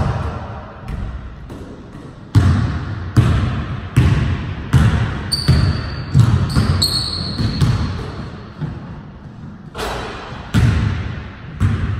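Basketball dribbled on a hardwood gym floor: a steady run of bounces a little under a second apart, pausing briefly after about 8 seconds and then resuming. Sneakers squeak sharply on the floor twice about halfway through.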